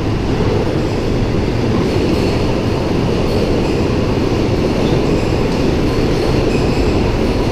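Steady, loud rumble of a moving train, with a low hum running under it.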